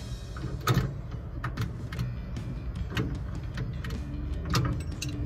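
Irregular metal clicks and light knocks from hand tools working the gas gauge in a Ford Model A's dash, some in quick pairs, as the gauge is tightened and held straight.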